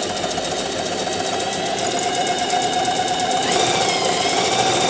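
Singer Facilita Pro household sewing machine running under its foot pedal, sewing a straight stitch through fabric with a steady, rapid needle rhythm. It gets a little louder from about three and a half seconds in, as the pedal is pressed further.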